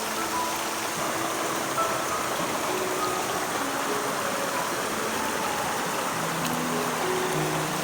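A river rushing steadily, with soft background music playing short held notes over it.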